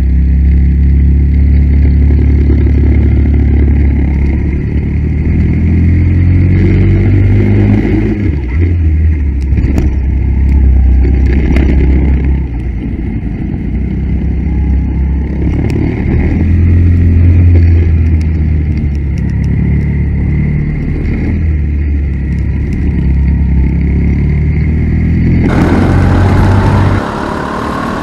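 Go-kart engine heard from on board, running hard with its pitch repeatedly rising and falling as the kart accelerates and slows through the corners. About two and a half seconds before the end the sound changes abruptly, turning hissier and then quieter as the deep engine note drops away.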